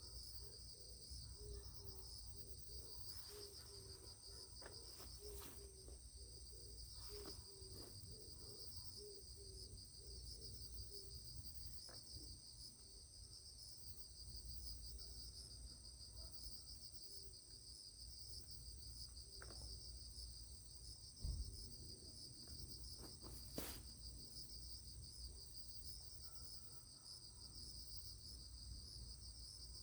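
Faint, steady high-pitched chirring of an insect chorus, with a couple of soft knocks and rustles about two-thirds of the way through.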